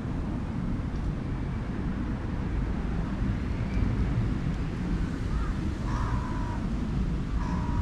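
Wind buffeting the microphone in a steady low rumble, with three short, faint bird calls in the second half.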